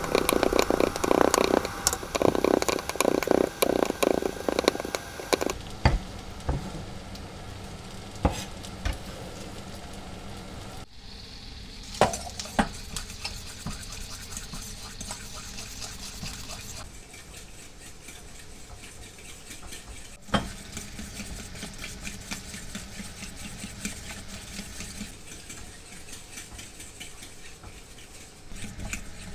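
Kitchen knife chopping fresh mint on a wooden cutting board, sped up so the strokes run together in a rapid patter for about the first five seconds. After that a spoon stirs in a stainless-steel bowl of homemade mint mayonnaise set over a pot of hot water, with occasional clinks against the metal.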